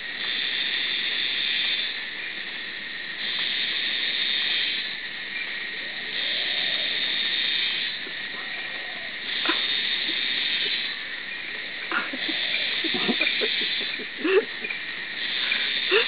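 Night-time insect chorus: a high buzzing that swells for about a second and a half and drops back, about every three seconds, over a steady high trill. A few short knocks come in the last few seconds.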